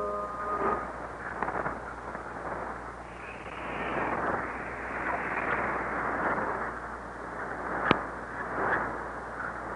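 Shortwave radio static from a Realistic DX-302 receiver: a muffled hiss that swells and fades, broken by crackling static crashes, the sharpest about eight seconds in.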